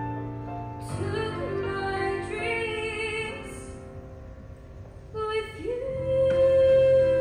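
Solo female voice singing a slow ballad over a soft sustained accompaniment. The voice comes in about a second in, dips in level around the middle, then slides up into a long held note near the end, the loudest part.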